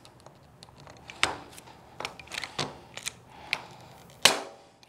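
Hand pop riveter squeezed several times to set an aluminum rivet, giving a series of sharp clicks. The loudest snap comes about four seconds in as the rivet's mandrel breaks off.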